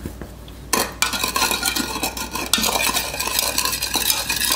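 A plastic spoon stirring sugar into milk in a plastic measuring cup: fast, continuous scraping and clicking of the spoon against the cup's sides, starting just under a second in.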